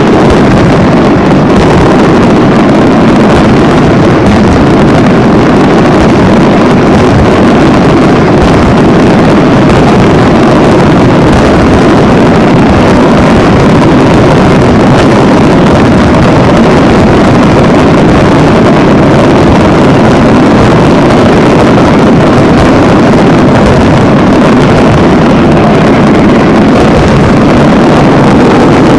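Aerial fireworks in a dense barrage, the bursts overlapping so closely that they merge into one loud, unbroken noise.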